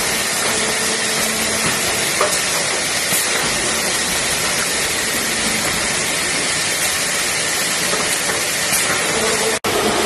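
Steady, loud hiss-like noise of wood-processing factory machinery running, with no clear rhythm; it cuts out for an instant near the end.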